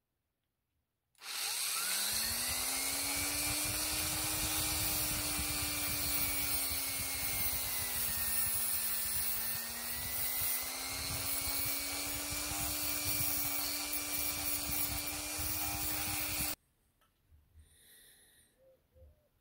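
Handheld rotary tool with a cut-off disc spinning up about a second in and running steadily while it cuts through the stranded steel inner throttle cable. Its pitch sags briefly under load midway, and it switches off suddenly near the end.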